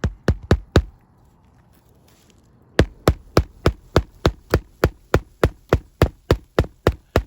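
Hammer striking on a shingle roof: four quick blows, a pause of about two seconds, then a steady run of about sixteen blows at roughly four a second.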